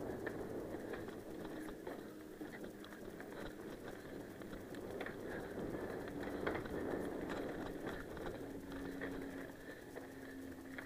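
Mountain bike rolling over a dry dirt and loose-gravel trail, heard from a camera on the handlebars: steady tyre noise with many small clicks, rattles and knocks as the bike goes over stones and bumps.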